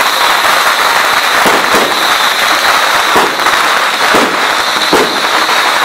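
A string of firecrackers going off in a loud, continuous dense crackle, with a few sharper bangs standing out about once a second.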